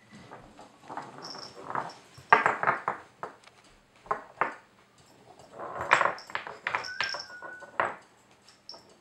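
Wooden pegs of a Nina Ottosson Dog Fighter puzzle toy clattering and knocking against the wooden board and the hardwood floor as a Norwich terrier puppy works them loose. The clatter comes in bursts, loudest a little after two seconds and again around six seconds.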